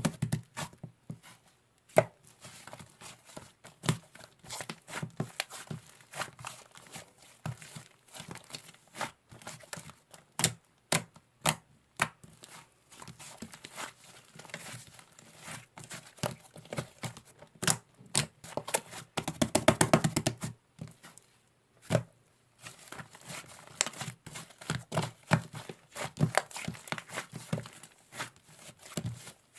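Irregular sharp taps, clicks and crinkling of objects being handled close by, with a denser, louder stretch about twenty seconds in.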